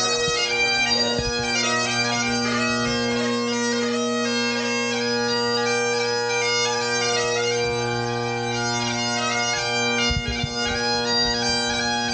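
Bagpipes playing a tune, the chanter's melody moving over steady unbroken drones.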